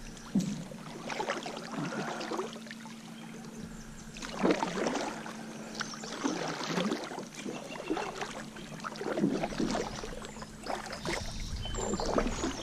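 Kayak paddle strokes: the double-bladed paddle dipping into calm, shallow water and pulling through, with a splash and dripping about every two seconds.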